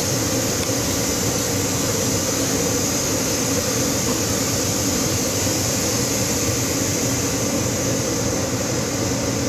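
Steady hum and hiss inside the cab of a suspended monorail car standing at the station, its onboard equipment such as air conditioning running while it waits to depart.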